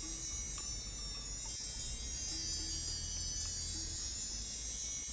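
Background track of wind chimes made in Mixcraft: a few soft, scattered chime tones over a steady, shimmering bed of sound.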